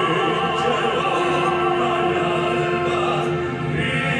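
Male vocal quartet singing live into microphones, the voices carrying vibrato and holding one long note for about two and a half seconds.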